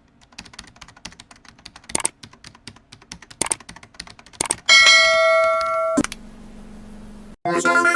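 Rapid clicking like typing for about four and a half seconds. Then comes one loud bell-like ding that rings for over a second and is cut off by a click, followed by a low buzz. Near the end a loud, fast-trilling phone ring starts.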